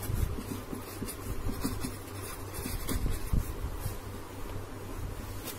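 Pen writing on paper: faint, irregular scratching strokes as words are written by hand, over a low steady hum.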